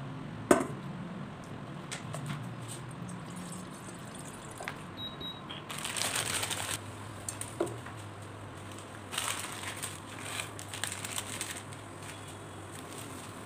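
Kitchen handling at an induction cooker. There is a sharp knock about half a second in and a short electronic beep about five seconds in, then bursts of rustling and splashing as water and a block of dry instant noodles go into a stainless saucepan. A low steady hum sets in after the beep.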